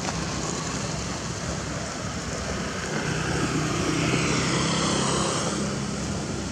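Engine of a passing motor vehicle: a steady hum that swells about three seconds in, peaks, then fades toward the end, over constant outdoor noise.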